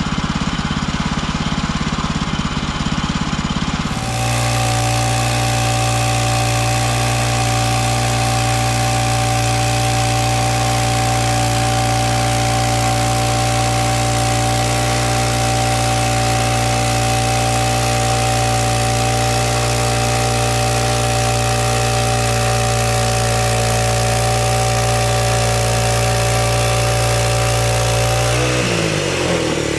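Portable band sawmill's gasoline engine running at a steady high speed. It settles into an even, constant pitch about four seconds in, and near the end its revs fall away.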